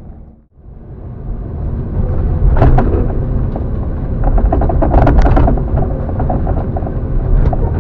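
Hydraulic excavator's diesel engine running hard while digging, heard from inside the cab. It is a steady low rumble, with the bucket scraping and clanking against soil and stones a few times, loudest about five seconds in.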